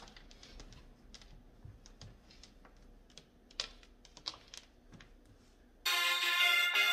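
Faint scattered clicks and light rustles of a cotton T-shirt being turned over and smoothed on a wooden desk, with a marker being handled. About six seconds in, instrumental music starts suddenly and loudly.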